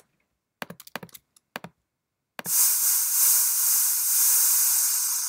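A few keyboard and mouse clicks. Then, about two and a half seconds in, white noise from a Max/MSP noise~ generator comes in sharply and begins a slow fade, shaped by a 5000 ms envelope from a function object driving line~.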